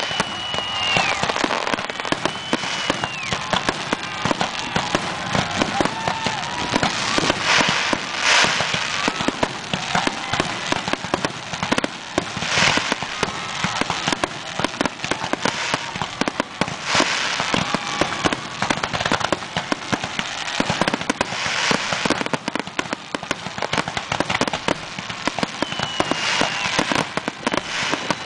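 Fireworks finale: a dense, continuous crackle of bursts and pops, with louder bursts every four to five seconds.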